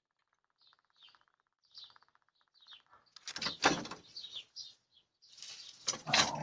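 Small birds chirping, short high chirps repeating every half second or so, over a fast buzzing rattle in the first half. Two louder noisy scraping bursts come about three seconds in and again near the end.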